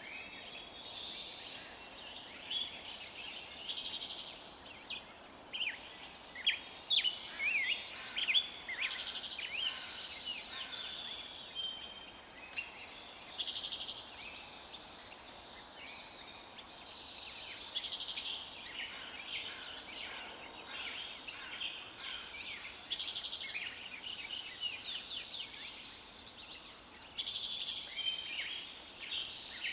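Several songbirds singing and chirping at once, with overlapping trills, rapid chirp series and short whistled phrases, over a faint steady background hiss.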